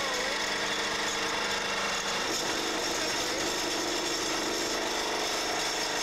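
Crane-hung vibratory pile-driving hammer running steadily as it works a steel pile, a dense mechanical buzz with no separate blows. Its tone shifts a little about two seconds in.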